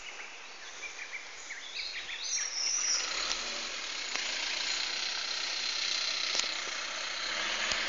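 Small birds chirping in short calls for the first few seconds. Then a steady, high-pitched hiss takes over from about three seconds in and stays to the end.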